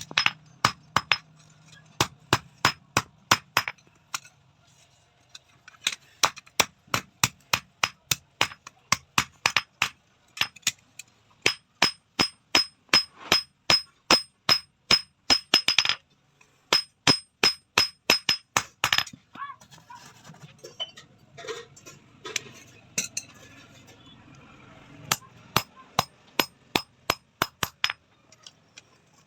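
Blacksmith's hand hammer striking steel on an anvil in a steady run of blows, about three a second, each with a high metallic ring. The hammering pauses briefly near four seconds and thins out to scattered blows for a few seconds past the middle.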